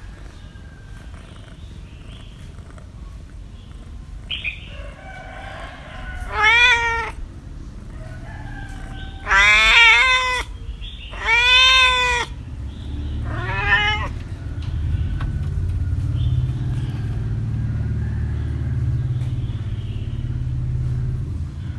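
A cat meowing four times, the second and third meows the loudest. After the last meow a low steady rumble continues underneath.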